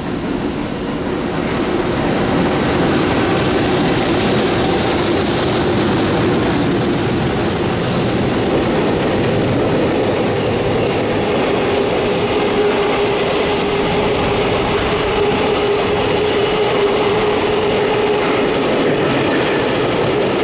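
A freight train passing at speed: the EH500 electric locomotive comes through, then a long string of container wagons rolls past with a dense, steady rumble of wheels on rail. It grows louder over the first two seconds, and a steady humming tone runs under the rumble.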